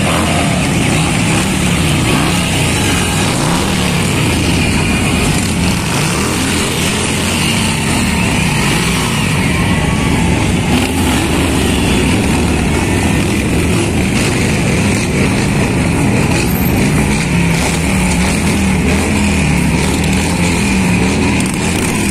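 Large cruiser motorcycles, Harley-Davidson V-twins among them, passing slowly one after another, their engines running with pitch rising and falling as they go by.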